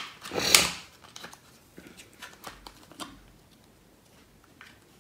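Small cardboard box being opened by hand: a loud scrape of cardboard about half a second in, then a few light rustles and clicks as the inner card tray is pulled out.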